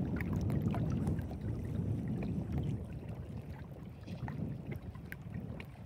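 Low, gusting rumble of wind on the microphone, heavier in the first three seconds and easing after, with a few faint ticks.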